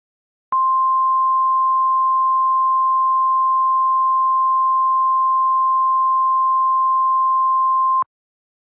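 NOAA Weather Radio-style warning alarm tone: a single steady high-pitched tone, held for about seven and a half seconds, that starts and stops abruptly. It is the alert signal that comes before a severe weather message is broadcast.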